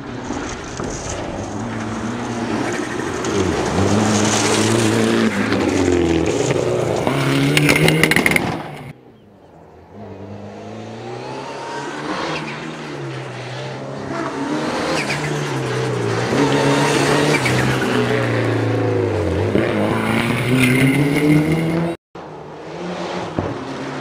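Rally cars driving hard along a gravel stage one after another, engines revving up and dropping back again and again through gear changes. The first car fades away about nine seconds in before the next one builds, and the sound cuts off abruptly for a moment near the end.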